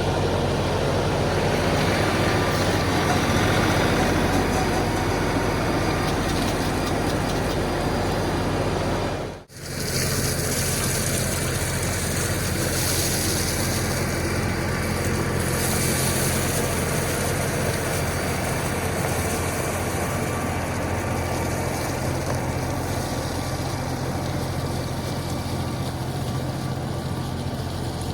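Diesel engine of an LS MT357 compact tractor running steadily under work, its hum unbroken apart from one brief cut-out about a third of the way in.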